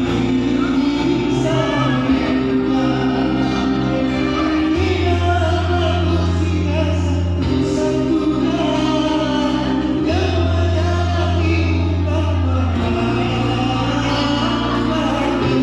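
Music with choir-like singing over held bass notes and chords that change every few seconds.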